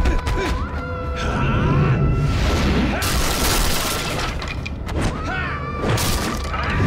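Martial-arts film fight soundtrack: held orchestral string-like music under a rapid series of punch and body-impact sound effects with whooshes, and a burst of crashing noise about three seconds in.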